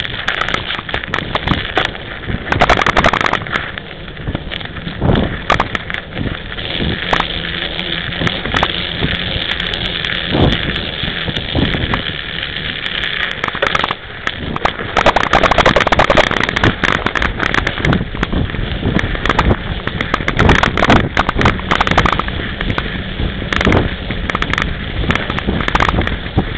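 Mountain bike's knobby tyres rolling over snow and ice, with frequent clattering knocks from the bike and camera mount over bumps, and wind on the microphone.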